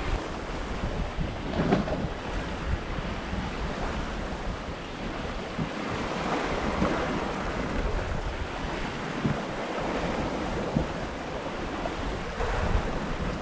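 Wind buffeting the microphone over a steady rush of breaking sea and water streaming along the hull of a Hallberg-Rassy 54 sailing yacht running dead downwind in rough, rolling seas.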